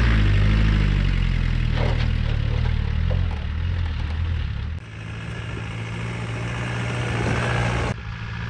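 Land Rover Discovery 300Tdi's four-cylinder turbodiesel engine working under load up a steep, rutted dirt track, its pitch rising and falling. About halfway through the sound cuts abruptly to a quieter, steadier engine note with more hiss, and it changes abruptly again near the end.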